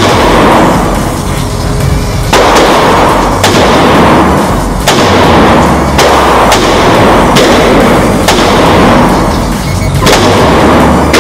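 FN SCAR 16S 5.56 mm semi-automatic rifle fired single shot by single shot, about nine shots at uneven gaps of one to two seconds, each leaving an echoing tail. Background music with a steady bass runs underneath.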